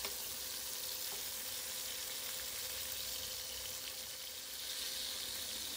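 Oil sizzling steadily around two dried croaker fish frying in a pan.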